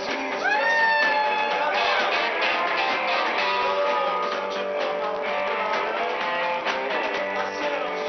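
Live band playing, with electric guitars and drums.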